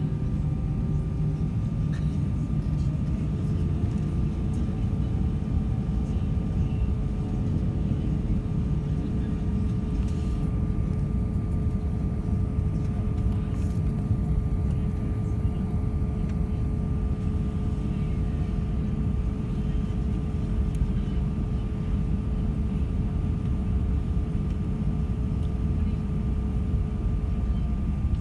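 Cabin noise of an Airbus A320-232 taxiing on its IAE V2500 engines at low power: a steady low rumble with a thin steady whine over it.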